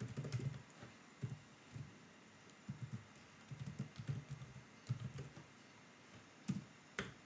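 Faint, irregular keystrokes of typing on a keyboard, a dozen or so taps, some in quick clusters, as an email address is typed in.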